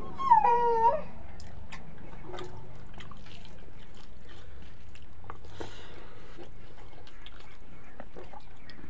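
Wet eating sounds of people eating rice and curry by hand: faint scattered mouth smacks and clicks over a steady low hum. A short high-pitched call or voice sounds about half a second in.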